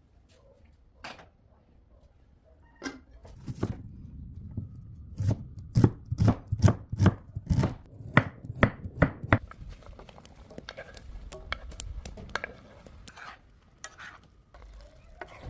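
Knife chopping food on a cutting board: a few light knocks, then a quick run of loud chops about three a second, easing off into lighter scattered knocks near the end.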